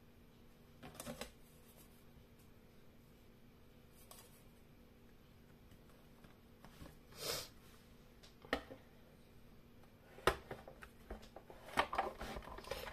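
Faint handling sounds: small metal cutting dies and paper shifted on a plastic cutting plate, a few brief isolated rustles and clicks. Near the end a quicker run of clatter as the plate stack is slid into a manual die-cutting machine.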